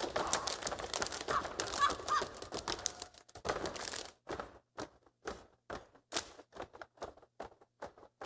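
Step team stepping: sharp stomps, claps and body slaps struck together by the ensemble. Dense at first over faint crowd noise, then thinning out to separate sharp hits at about three a second in the second half.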